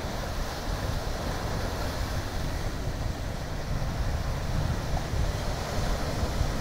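Ocean surf breaking and foaming over rocky ledges, a steady rush of white water with no single wave standing out, mixed with wind buffeting the microphone as a low, uneven rumble.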